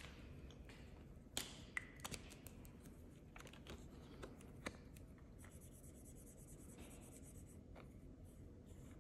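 Faint clicks and taps of a cash binder and paper being handled, then from about halfway through a highlighter marker rubbing steadily across a paper card as squares are coloured in.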